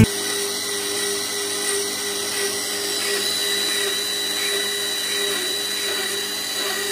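Protem SE60NG tube and pipe beveling machine running, giving a steady motor hum with a thin high whine.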